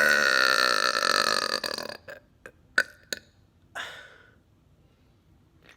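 A man's long, loud burp brought up by drinking soda, cutting off about two seconds in. A couple of short clicks and a breathy exhale follow.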